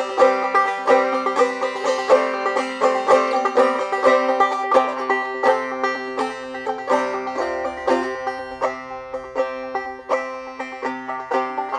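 Old-time clawhammer banjo playing a tune: a steady, even rhythm of plucked and brushed notes over ringing strings.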